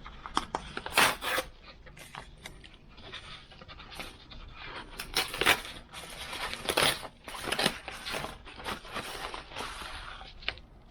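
A mailed package being opened by hand: a run of irregular rustles, scrapes and clicks from its packaging.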